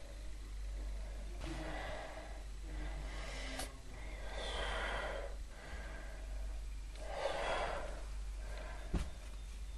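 Slow breathing close to the microphone, three soft breaths about two and a half seconds apart, over a steady low hum, with a sharp click near the end.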